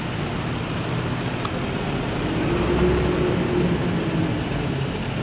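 Steady outdoor traffic noise with a vehicle engine passing, swelling about halfway through and fading again.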